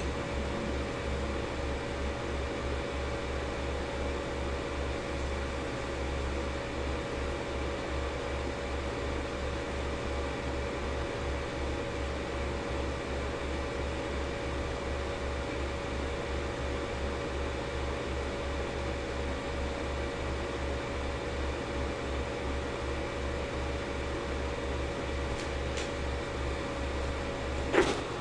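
Cooling fan of a running Proxima 9100 desktop overhead projector: a steady hum with a constant mid-pitched tone in it, and a short click near the end.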